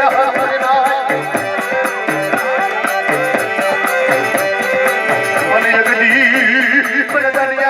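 Dakla folk music: a wavering melody line over a steady, repeating rhythm.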